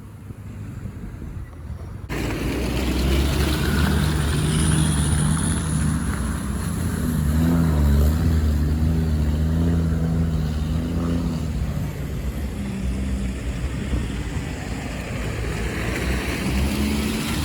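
Off-road 4x4 vehicle's engine running under load, its note rising and falling as it is revved. The sound jumps louder about two seconds in.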